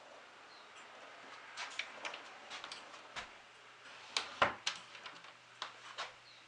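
Antique upright regulator clock ticking, with irregular clicks and knocks from its glazed wooden case door being handled; the loudest is a cluster of knocks a little after four seconds in.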